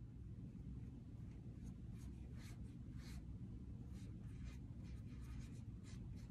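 Faint, scratchy strokes of a small 1/8 inch liner blender brush dragging acrylic paint across a painted board, repeated every second or less, over a low steady room hum.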